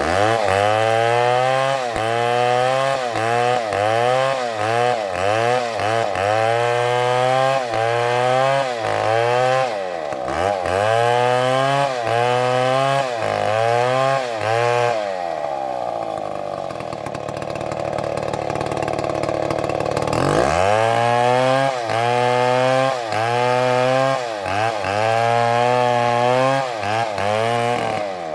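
STIHL chainsaw cutting wood: the engine pitch drops as the chain bites under load and revs back up, about once a second. About halfway through it eases off to a quieter, steadier running for several seconds, then goes back to cutting with the same repeated dips.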